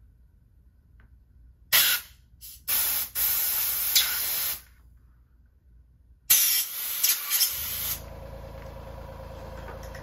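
Compressed air from an air compressor's blow nozzle, blowing dust out of a laptop's hinge gap in four hissing blasts: a short one, a brief puff, one of about two seconds and one of about a second and a half. About eight seconds in, the compressor's motor starts and runs with a steady hum.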